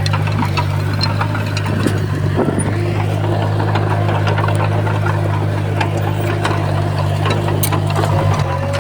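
Diesel engine of heavy earthmoving equipment running steadily, with scattered light metallic clicks and knocks over the engine hum.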